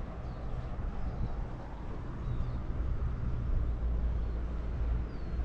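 Steady low rumble of wind on the microphone during an open ski-lift ride over the valley, with a few faint, short, high chirps.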